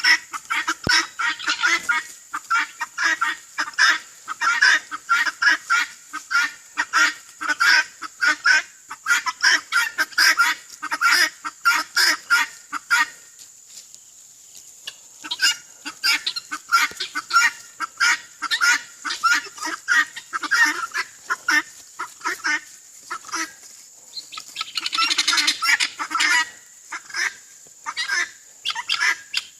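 A flock of birds calling nonstop in quick, short honking calls, several birds over one another, with a brief lull about halfway through.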